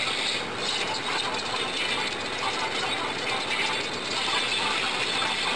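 Fast, continuous scratchy rubbing of an eraser and pencil on paper, sped up so that it runs together into a dense ratchety rasp.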